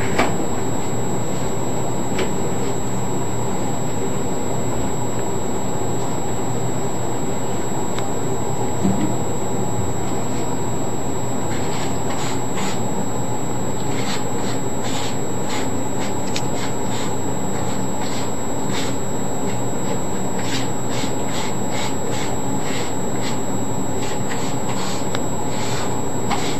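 A steady mechanical drone with a low hum throughout. From about twelve seconds in, quick light taps and scrapes of a card chopping powder on a plastic folder.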